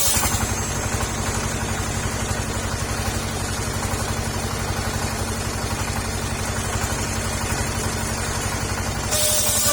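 Petrol engine driving a mobile circular saw rig, running steadily with a fast, even low beat.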